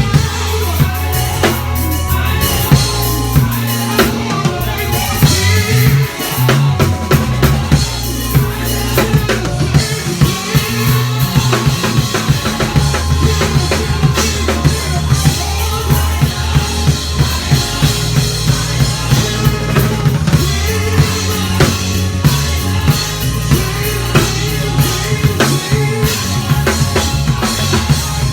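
Gospel band playing an instrumental stretch: electric bass holding and moving between deep notes over a busy drum kit with bass drum, snare and rimshots, and keyboard chords.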